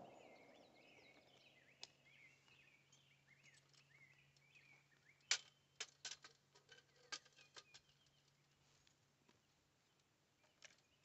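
The tail of a rifle shot dies away at the very start, then a quiet outdoor lull with faint birds chirping. From about five to seven and a half seconds in comes a cluster of sharp clicks and knocks from handling gear at the shooting bench, with one more click near the end.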